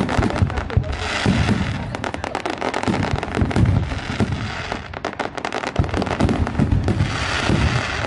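Aerial fireworks bursting overhead: dense, rapid crackling of many small pops over repeated deep booms.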